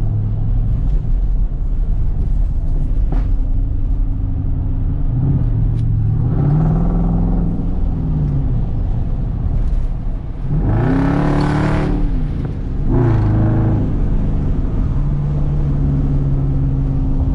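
Jeep SRT's V8 through a fully straight-piped exhaust, driving steadily and revving up three times. The pitch rises and falls with each pull, and the strongest, loudest pull comes about eleven seconds in.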